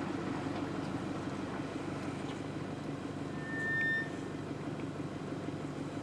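Steady low rumble of an idling vehicle engine. A single short high whistle sounds over it about three and a half seconds in.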